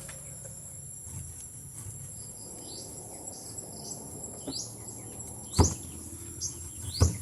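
Steady high-pitched drone of insects, such as crickets, with a few short rising bird chirps. Two or three sharp knocks break in during the second half, the loudest about five and a half seconds in.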